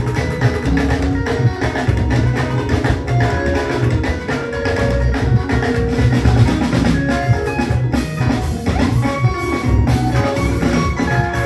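Live church band music with drum kit, bass and keyboard or mallet-like melody notes, playing a steady upbeat rhythm.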